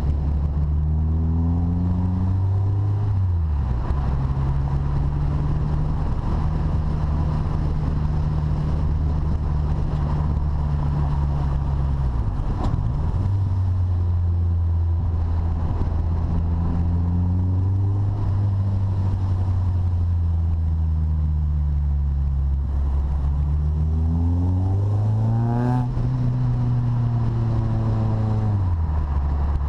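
Renault Clio Sport 172's 2.0-litre four-cylinder engine pulling the car along, heard from a camera on the car's side with road noise. The revs hold fairly steady with a few dips, rise sharply about 25 seconds in, then drop away near the end.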